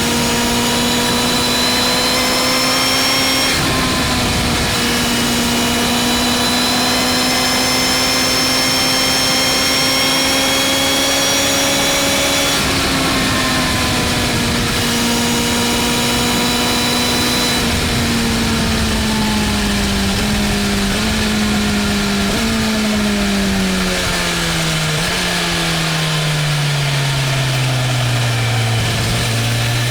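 BMW M1000R's inline-four engine under way, holding a steady high note that climbs slowly, with two brief dips in pitch where it shifts up. In the second half the bike slows: the note falls in steps, jumping up briefly at each of several downshifts and gliding lower, over steady wind noise.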